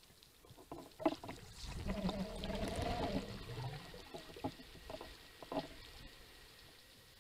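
Underwater noise through a speargun-mounted camera's housing: a sharp click about a second in, then a swell of rushing water noise with a low hum that peaks around three seconds and fades, with a few more clicks after it.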